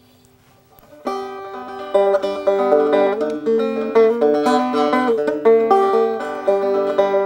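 Wood-rimmed mountain banjo being picked: a short tune of single plucked notes over ringing strings, starting about a second in, the notes ringing on at the end.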